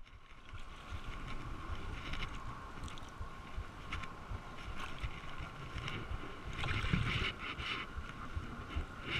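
Wind rumbling on the camera microphone, with water sloshing and brief scrapes as a hooked largemouth bass is pulled in by hand at the water's edge.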